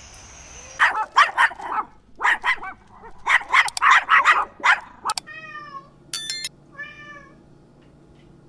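Cat meowing: several quick runs of short, rapid meows, then a few longer, downward-sliding meows, with a faint steady hum under the later part.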